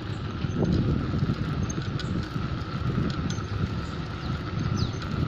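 Wind buffeting the microphone while travelling along a street, over a steady mid-pitched hum; a bird gives a short falling chirp near the end.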